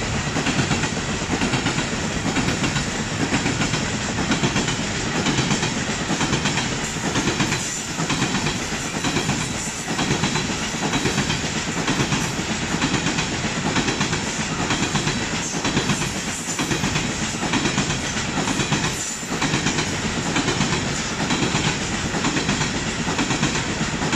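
Long train of steel coal hopper wagons rolling past close by, its wheels clattering over the rail joints in a steady, repeating clickety-clack.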